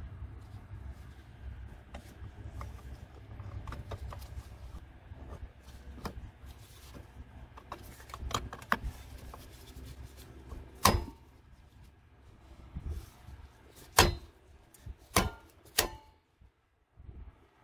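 Cover being fitted onto a metal electrical box: scattered small clicks and scrapes of handling, then four sharp metallic clicks in the second half as the cover is pressed into place. A low rumble runs under the first half and fades out.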